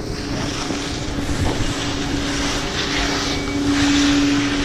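Skis sliding and scraping over groomed snow, in hissing patches, over a steady mechanical hum at one pitch that grows louder a little before the end.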